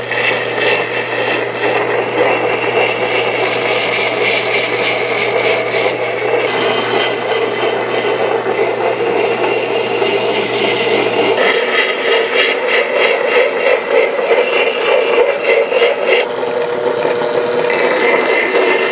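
Belt-driven electric wet grinder running while the steel bit of a Plumb Permabond axe is ground against its stone wheel: a steady scraping rasp over the motor's low hum. The hum drops out about eleven seconds in while the scraping goes on.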